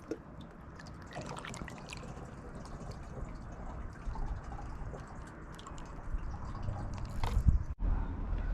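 Water trickling and dripping, a steady rush dotted with small irregular drips, with a brief dropout near the end.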